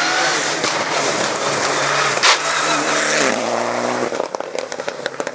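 Rally car engine running at high revs as it passes, with a sharp bang about two seconds in. The revs then drop as it slows, followed by a rapid string of pops and crackles.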